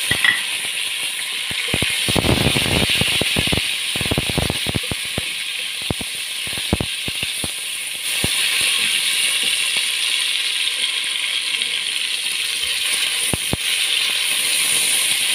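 Tomatoes and onions sizzling in hot oil in a pot, with a wooden spoon scraping and knocking against the pot as they are stirred. The knocks come thickest a couple of seconds in, then thin out to scattered clicks over the steady sizzle.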